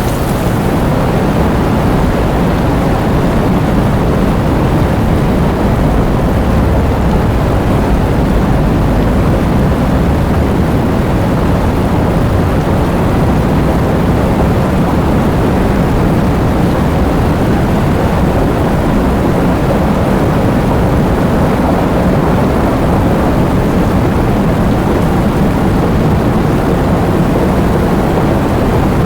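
Heavy rain pouring steadily, a dense, even noise with a deep low rumble.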